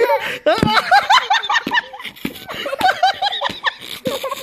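Giggling laughter in quick repeated peals, with a couple of short low thumps.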